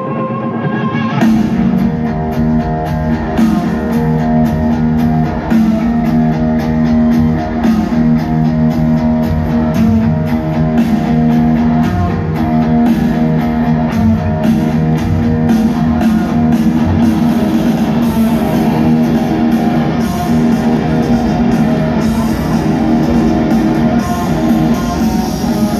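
Live rock band playing in an arena, heard from the crowd: electric guitars, with the drum kit and full band coming in about a second in and holding a steady beat.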